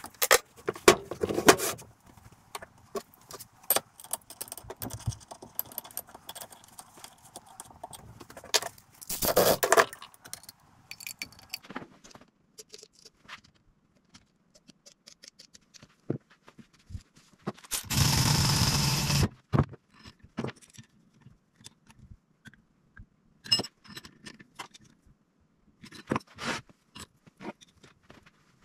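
Metal tools and steel vise parts clinking, knocking and scraping by hand during reassembly of a machinist's mill vise. Partway through there is one loud, even burst of noise lasting about a second and a half.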